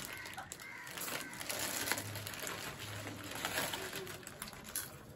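Lay's potato chips being crunched while foil chip packets crinkle and tear, in short irregular snaps. Two brief low hums sound about two and three seconds in.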